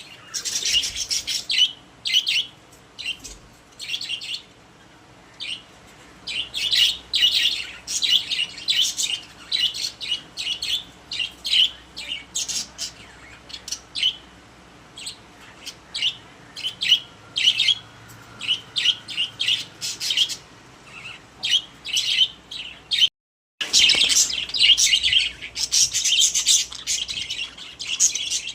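Pet budgerigars chirping and chattering in quick, dense runs of short high calls, cutting out completely for about half a second near the end.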